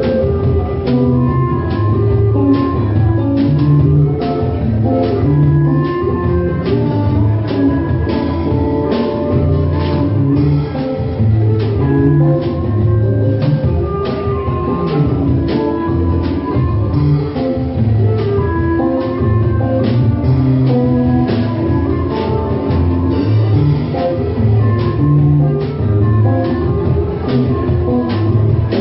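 Instrumental music: a melody of shifting notes over loud bass notes, with a steady percussive beat.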